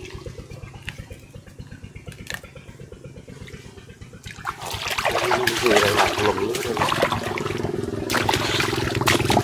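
Water splashing and sloshing that grows much louder about four and a half seconds in, over a steady low pulsing hum.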